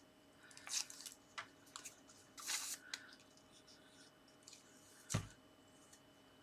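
Paper and card being handled: a few light rustles and clicks, a longer rustle about two and a half seconds in, and a dull tap a little after five seconds as a paper piece is pressed down onto the card.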